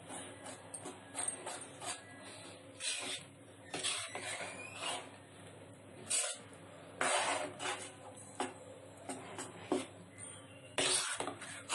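Metal spoon stirring thick haleem in a kadai: irregular scraping strokes against the pan, a few louder than the rest.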